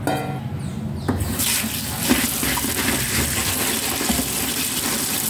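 Tap water running onto brown rice in a bamboo basket in a steel sink while a hand stirs and rubs the grains: rice being washed before cooking. The stream starts about a second in and then runs steadily.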